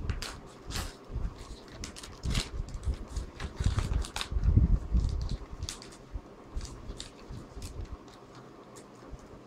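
Hands opening a small package: irregular rustling and clicking of the packaging with low handling thumps, busiest in the middle and dying down near the end.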